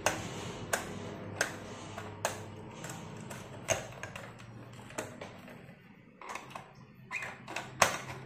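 Screwdriver turning the terminal screw of a 5-pin socket to clamp a wire: sharp clicks at uneven intervals, roughly one a second, over a faint steady hum.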